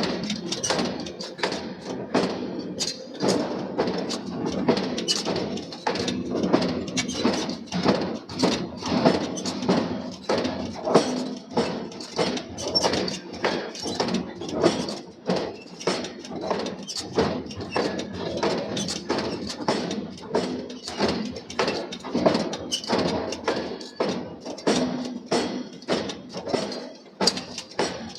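Forging hammer striking steel in quick repeated blows, about two to three a second, over a steady lower hum.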